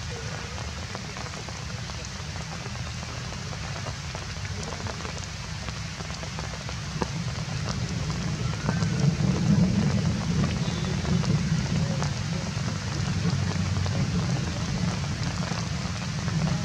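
Steady rain falling and pattering on leaves, with many small drop ticks; it grows louder about halfway through.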